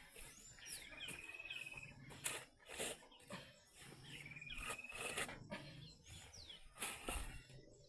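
A bird calls twice, each call a falling whistle that runs into a short trill, the second about four seconds after the first. Several brief knocks or scrapes fall in between.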